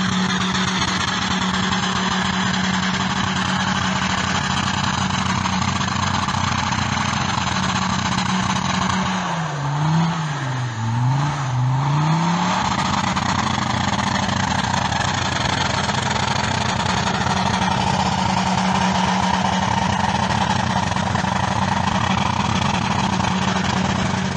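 Land Rover Defender's engine held at steady high revs as it strains to tow a heavy truck on snow, the revs dipping and climbing twice about ten seconds in.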